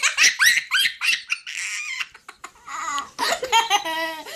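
A toddler laughing: a quick run of short, high-pitched squeals in the first second or so, then a string of rhythmic laughs near the end.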